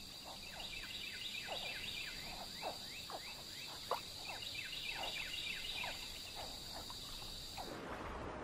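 Swamp wildlife ambience: a steady high-pitched insect drone with many short, falling chirping calls, several a second. Near the end it cuts abruptly to a soft rushing wash.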